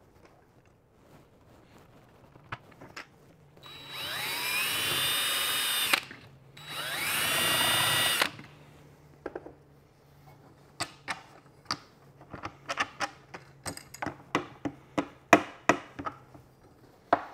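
DeWalt cordless drill drilling a hole through a plastic dash tray in two bursts of about two seconds each, the motor whine rising as it spins up each time. It is followed by a string of light clicks and knocks as the plastic tray and small parts are handled.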